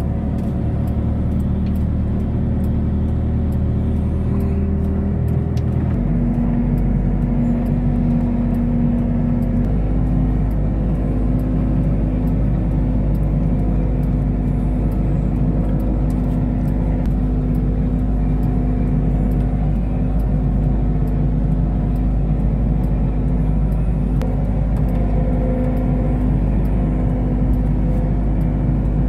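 Merlo telehandler's engine running steadily while driving, heard from inside the cab. Its note changes about six seconds in and rises slightly about ten seconds in, then holds steady.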